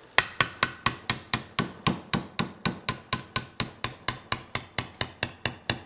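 Hammer tapping a pin punch about four times a second in an even rhythm, driving the trigger-group pin out of a Remington Model 8 rifle's receiver; each strike gives a short metallic ring.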